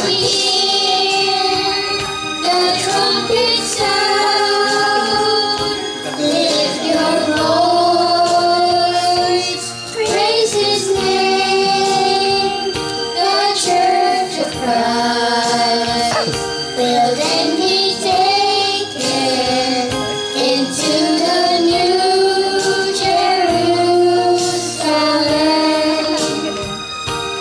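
Two young boys singing a duet into microphones over a recorded musical backing track, amplified through a PA speaker. They hold long notes with a wavering pitch.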